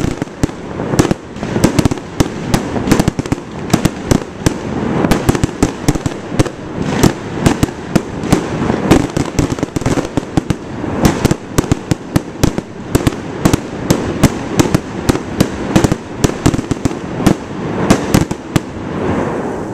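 Aerial fireworks display: many shells bursting in quick succession, several sharp bangs a second over a continuous low rumble, with no pause.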